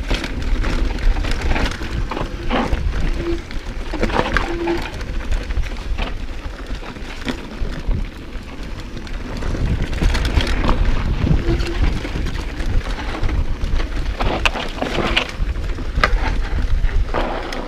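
Mountain bike riding fast down a dry, rocky dirt trail: wind rumbling on the action camera's microphone, tyres crunching over stones and the bike clattering and rattling over bumps, with a few brief squeaks.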